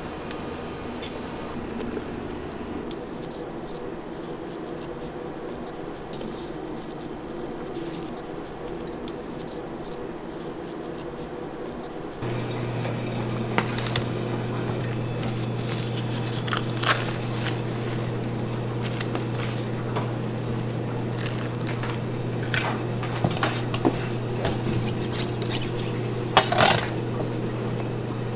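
Steady hum of kitchen machinery, louder from about midway, with soft rustles and light taps as gloved hands handle sponge cakes and paper-lined chocolate cakes on a metal tray and wire rack. A few sharper clicks come from the paper liners and metal.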